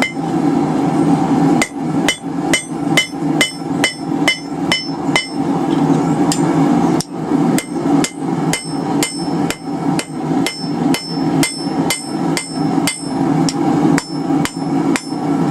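Hand hammer drawing out hot steel on the horn of an anvil: a steady run of blows at about three a second, each ringing briefly, with a short pause just after the start. A steady low rumble runs underneath.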